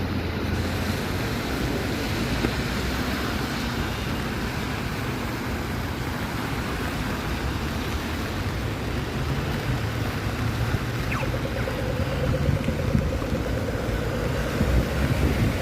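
Steady street ambience of passing road traffic with wind buffeting the microphone; a steady hum joins about eleven seconds in.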